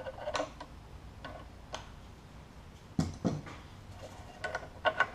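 A few light, scattered clicks and taps of metal parts as the AK trigger group inside the receiver is oiled and handled, the loudest about three seconds in.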